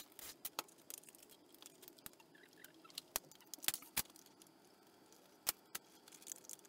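Scattered sharp metallic clicks and clinks, about half a dozen, from hand tools and loose bolts being handled while a motorcycle engine's belt covers are taken off.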